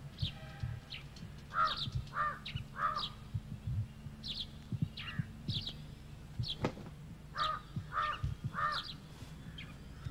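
Crows cawing, in two runs of three caws, over short high chirps of small birds. A single sharp click about two-thirds of the way through, with a steady low hum underneath.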